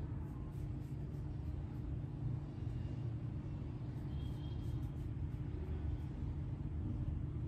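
Steady low background rumble with a faint steady hum.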